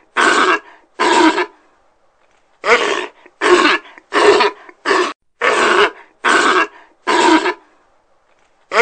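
A run of short, rough animal calls, about one every three-quarters of a second, each lasting about half a second, with a pause of about a second near the start.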